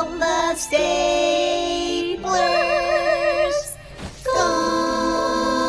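A song's ending: voices singing long held notes over the music, one note wavering with vibrato about three seconds in, then a brief break and a final sustained chord.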